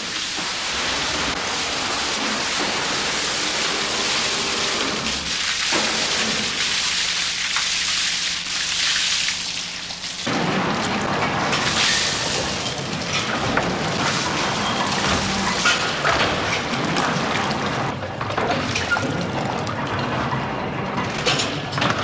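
Water splashing and rushing as ice moulds are dipped in a warm-water bath to loosen the frozen blocks, over a low rumble. The rumble drops away for a few seconds about six seconds in, then comes back.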